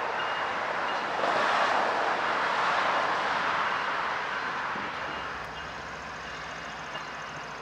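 Norfolk Southern diesel freight locomotives working under load to start a heavy train out of a siding: a steady engine roar that swells a second or so in and eases a little after about five seconds, when a low engine drone comes through.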